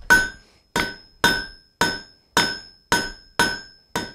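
Hand hammer striking a red-hot steel bar on an anvil, about two blows a second, each blow with a short metallic ring that dies away. The smith is drawing the bar's tip out to a point.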